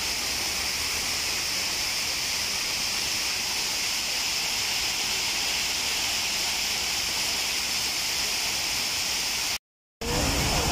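Park fountain: dandelion-shaped spray heads and frothing jets giving a steady rushing hiss of water splashing into the basin. It cuts out suddenly for a moment near the end.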